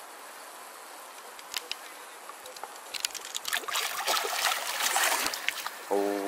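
A hooked wels catfish splashing at the water's surface as it is brought in to be landed. The splashing starts about halfway through and grows louder, and a brief steady tone sounds just before the end.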